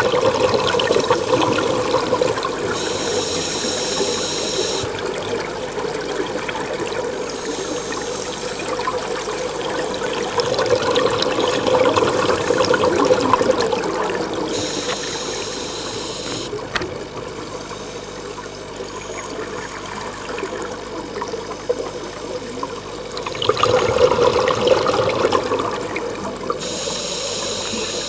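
Scuba diver breathing through a regulator, heard underwater: a burst of exhaled bubbles about every twelve seconds, each followed by the hissing whine of an inhalation through the regulator.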